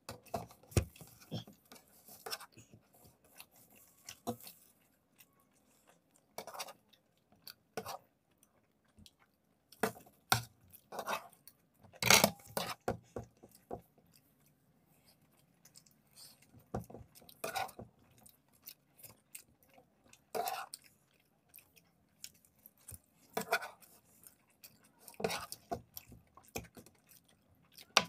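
Mouth sounds of people eating soft macaroni pasta, with forks clicking and scraping on plates. The clicks and knocks come irregularly, the loudest about twelve seconds in.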